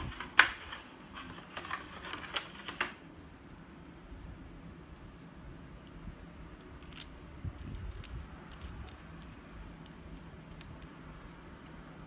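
Sharp clicks and snaps of small plastic parts and packaging being handled: a dense run in the first three seconds, the loudest just under half a second in, then scattered lighter clicks later on.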